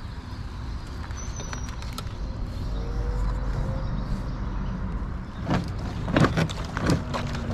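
Steady low rumble of road traffic on a nearby bridge. From about five and a half seconds in come sharp scrapes and knocks as a plastic kayak is pushed off the gravel shore with a paddle.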